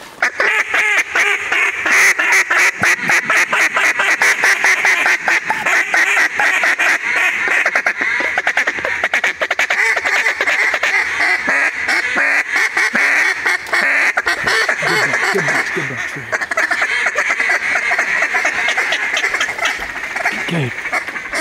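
Several duck calls blown at once: a steady run of loud quacks and fast feeding chatter, used to call in ducks flying over the flooded timber.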